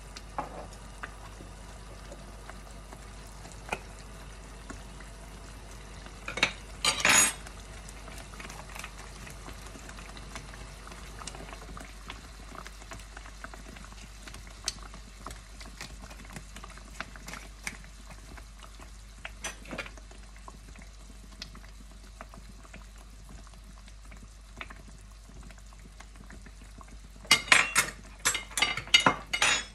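Tomato sauce simmering in a frying pan with a soft, steady bubbling. There are scattered light clicks, a short burst of loud clattering knocks about seven seconds in, and a quick run of loud rattling clatters near the end as spice jars are handled beside the pan.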